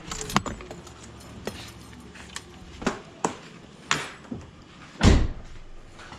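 Scattered clicks and knocks from keys and a car door being handled around a 2002 Ford Focus just after its engine was switched off, with a heavier thump about five seconds in.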